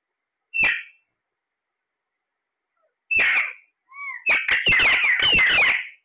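Alexandrine parakeets calling: one short squawk just after the start, another about three seconds in, then a fast run of squawks from about four seconds in.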